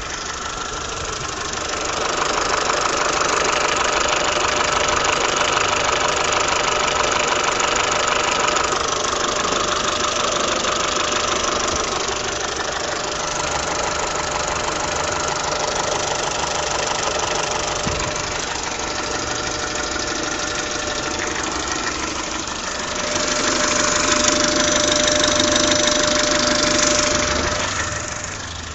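PSA TU5JP4 1.6-litre 16-valve petrol engine running with a knock inside it, the knock the engine is being recorded for. The engine gets louder twice for several seconds, once starting about two seconds in and once near the end, and is steadier between.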